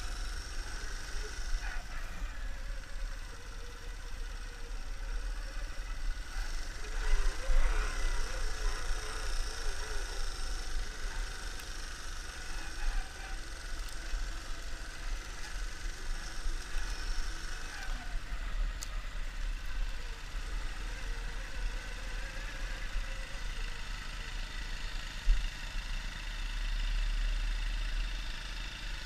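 Motorbike engine running steadily as it is ridden over rough paddock grass, with a constant low drone and wind noise on the microphone. A single sharp knock comes late on.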